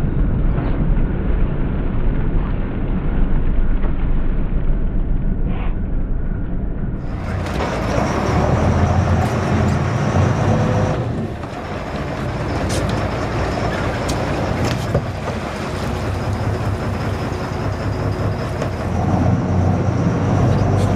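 Sportfishing boat's engines running with a steady low hum, under a hiss of wind and water.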